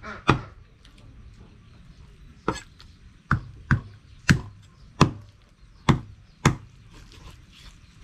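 A cleaver chopping raw chicken on a round wooden chopping board. About eight sharp chops, unevenly spaced: one just after the start, a pause of about two seconds, then a run of seven.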